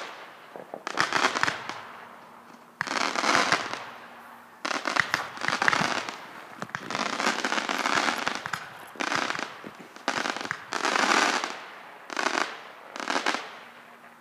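Fireworks going off in a rapid series of about ten bursts, each a cluster of quick pops lasting about a second, with short gaps between them.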